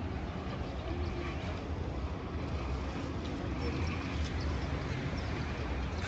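Steady outdoor background noise of a walk along a beach promenade: a low, fluttering rumble of wind on the microphone, with faint voices of passers-by.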